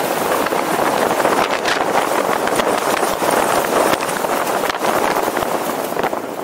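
Wind rushing over a car-mounted microphone while the car drives along, mixed with road and tyre noise. The noise is steady, with many small crackles through it.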